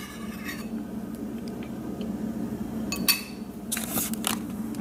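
A few light clinks of dishware being handled, about three seconds in and again near the end, over a steady low hum.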